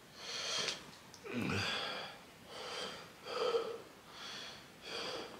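A man breathing hard through his open mouth: about six quick, airy gasps and exhales roughly a second apart. He is panting against the burn of extremely spicy noodles.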